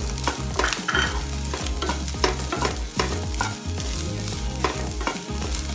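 Wooden spatula stirring and scraping boiled rice around a nonstick frying pan, with frequent quick scrapes and taps against the pan, over the sizzle of the rice frying in ghee.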